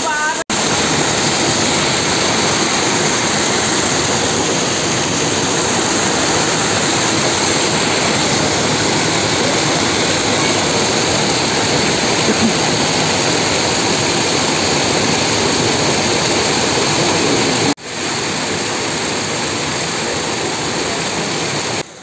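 Waterfall pouring: a loud, steady rush of falling water, cut off twice for a moment, just after the start and a few seconds before the end.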